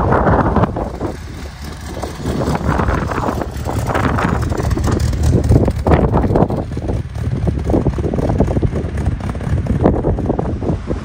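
Car engine running, with wind buffeting the microphone in uneven gusts.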